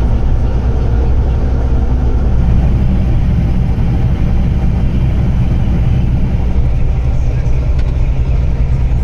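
Tractor engine running steadily as it hauls a loaded grain trailer, a continuous low drone.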